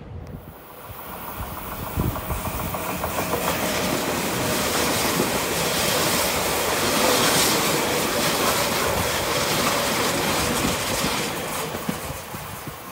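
Tobu 100 series Spacia electric express train passing close by, its wheel and running noise on the rails building over several seconds to a peak and then fading.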